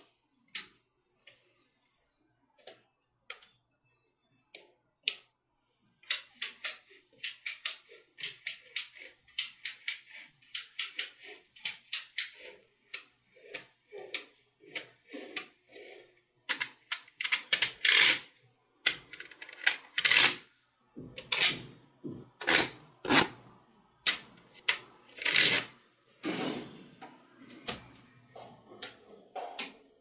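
Small metal magnetic balls clicking and snapping together as they are set in place and pushed into rows. A few separate clicks at first, then quick clusters of clicks and rattles from about six seconds in.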